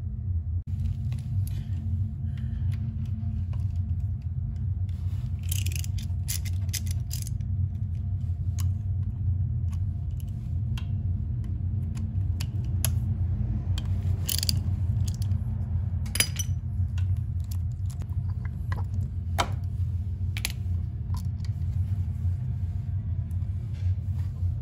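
Scattered light metal clicks, clinks and scrapes of hand tools and small motorcycle parts being handled during oil-change work, over a steady low hum.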